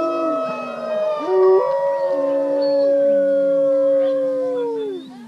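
A chorus of wolves howling. Several long howls at different pitches overlap and glide, then the last one falls in pitch and dies away near the end.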